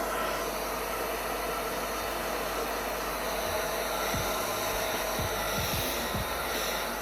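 Handheld hair dryer blowing steadily, used to dry layers of lace wig glue until they turn clear.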